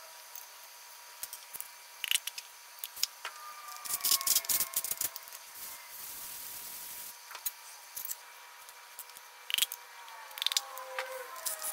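Tools and parts being handled on a bare aluminium LS V8 engine block on a stand: scattered metallic clicks and knocks, a brief hiss about six seconds in, and a few short falling squeaks.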